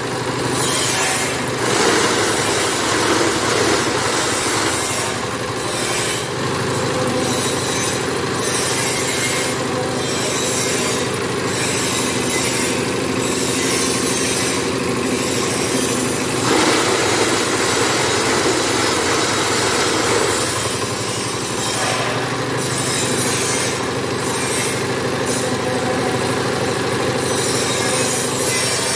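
Small single-cylinder diesel engine running steadily, driving the vibrator of a manual paving-block press. Over it comes repeated rattling and scraping as concrete mix is spread and levelled in the steel mould.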